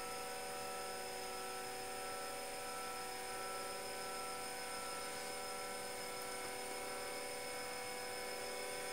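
Homemade pulsed DC motor running steadily: its coils, switched by transistor circuits, give a continuous whine of several steady tones together.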